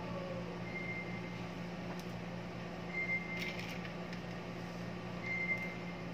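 A freshly powered CCTV DVR booting up: a steady electrical hum of its cooling fan and hard disk, with a short high-pitched beep repeating about every two and a half seconds. A few light clicks come just past the middle.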